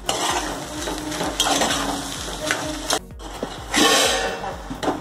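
Steel spoon stirring sprouted moth beans (matki) in a metal pot as they sauté in oil: the beans rustle and the spoon scrapes the pot in uneven strokes, with a short pause about three seconds in and a loud stroke just before the fourth second.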